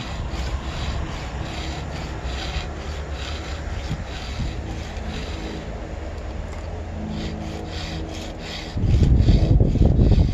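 Round chainsaw file stroked across the cutters of a Stihl ripping chain clamped in a vise: a rasping scrape about twice a second, with a short pause a little past halfway. A loud low rumble comes in near the end.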